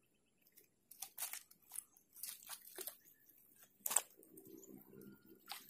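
A scatter of sharp clicks and crackles close to the microphone, the loudest just before four seconds in, like rustling and handling as the angler moves. A low steady hum comes in after about four seconds.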